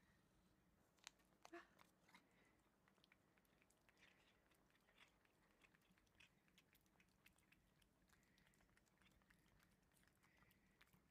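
Abyssinian cats licking a Ciao Churu paste treat from its tube: faint, quick, wet licking clicks, with a few louder clicks about a second and a half in.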